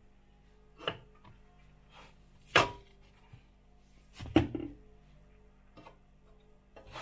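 A few separate kitchen knocks and clatters, the two loudest about two and a half and four and a half seconds in, over faint background music.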